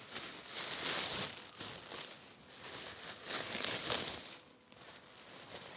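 Sandwich wrapping crinkling as it is pulled open by hand, in two main spells of rustling, about a second in and again between three and four seconds in.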